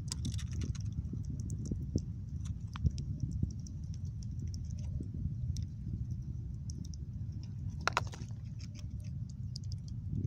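A squirrel nibbling, with small irregular clicks and crunches over a steady low rumble; a denser crackle of clicks comes about eight seconds in.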